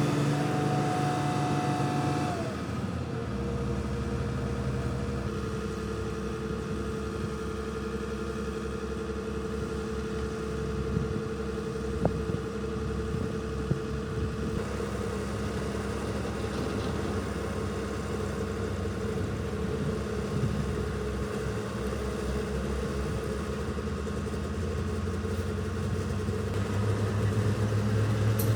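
Engine running steadily at an even pitch, with a few sharp clicks in the middle. It grows louder near the end.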